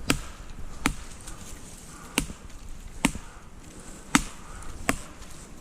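A stick rapping on a tree trunk, six sharp knocks coming roughly in pairs, to flush quarry out for the hawk.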